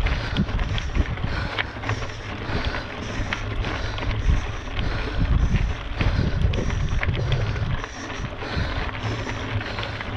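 Wind buffeting an action camera's microphone on a mountain bike, with scattered clicks and rattles, over faint background music with a steady beat.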